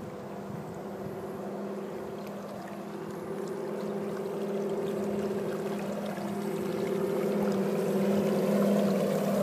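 Radio-controlled model lifeboat under way: a steady motor hum over the wash of water, growing louder as the boat comes closer.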